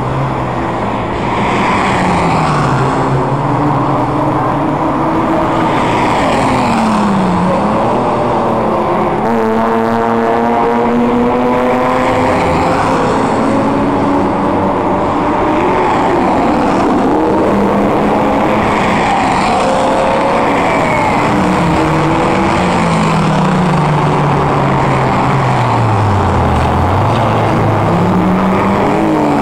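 Several cars' engines running hard on a racing circuit, pitches climbing as cars accelerate through the gears and dropping as they brake or pass. The engine sound is loud and continuous, with two or more cars heard at once, and one climbs sharply in pitch about ten seconds in.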